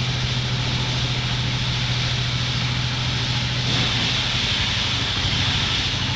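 An engine running steadily at an even low pitch, with a constant hiss over it.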